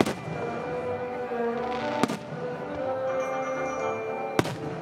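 Aerial firework shells bursting three times, once at the start, once about two seconds in and once near the end, the first the loudest. Under them runs steady orchestral music from a live symphony orchestra.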